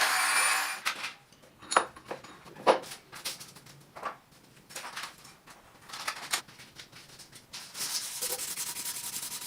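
A power tool's motor runs and stops about a second in. Then come separate hand rubbing or sanding strokes, uneven and a second or so apart, which turn into steady scrubbing near the end.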